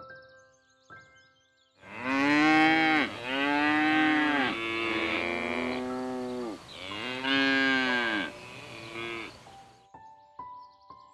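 Jersey cow mooing: a run of several long, loud moos in close succession, each rising and then falling in pitch, starting about two seconds in and stopping shortly before the end.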